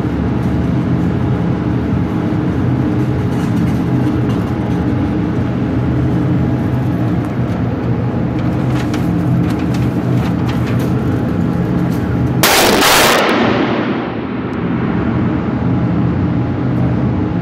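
Steady mechanical hum in an indoor shooting range, with one loud gunshot about three-quarters of the way through that rings out and dies away over about a second.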